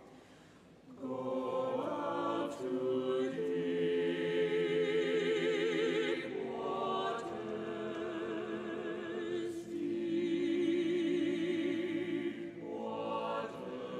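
Church choir singing a slow hymn, the held notes wavering with vibrato. After a brief lull, the voices come in about a second in and move through several phrases.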